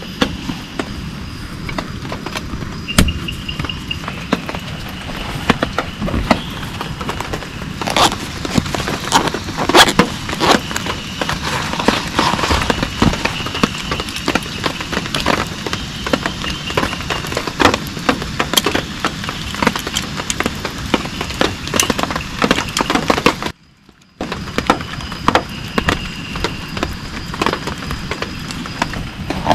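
Heavy rain, a dense patter of sharp drop impacts. It cuts out for a moment about three-quarters of the way through.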